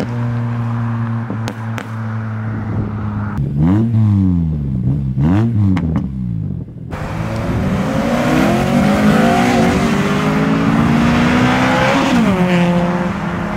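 2008 Acura TSX's 2.4-litre four-cylinder breathing through a muffler-delete exhaust with a crackle tune: running steadily, then blipped up and down twice with a few sharp cracks. After that comes a longer pull, its pitch rising steadily for about five seconds before dropping back near the end.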